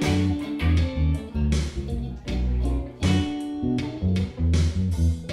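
Background music: guitar-led track with a bass line and a steady beat.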